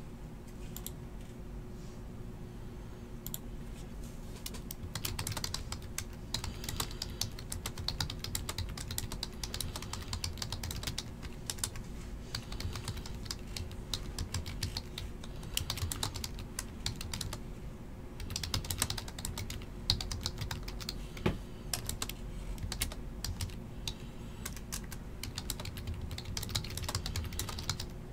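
Typing on a computer keyboard: quick, irregular key clicks in spurts, starting about five seconds in, over a steady low hum.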